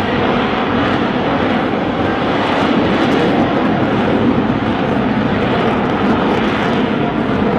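Lockheed Martin F-35B's single F135 jet engine, heard loud and steady throughout with no clear rise or fall in pitch.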